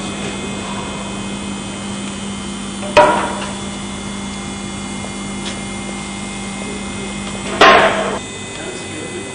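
Two loud, sharp knocks with a short ringing tail, about four and a half seconds apart, the second one longer. A steady low hum runs under them and stops just after the second knock.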